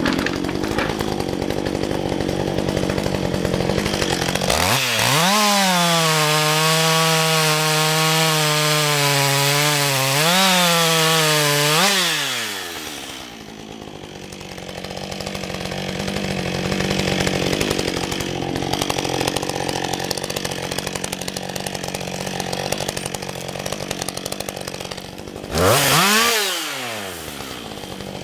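Husqvarna 562 XP two-stroke chainsaw idling, then revved up to a high, steady run for about seven seconds, dipping once briefly, before dropping back to idle. Near the end it gives one short blip of the throttle.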